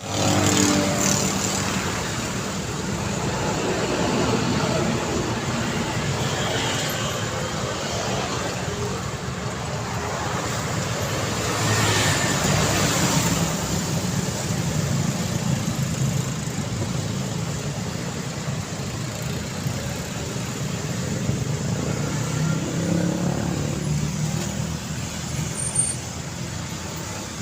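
Busy street traffic: a continuous stream of vehicles passing, swelling and fading as each goes by, with a louder pass about twelve seconds in.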